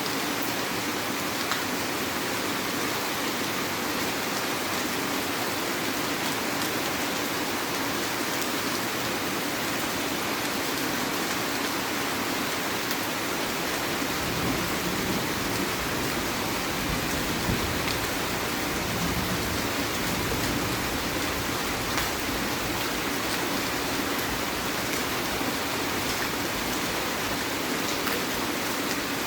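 Heavy rain falling steadily, with a low rumble joining in about halfway through.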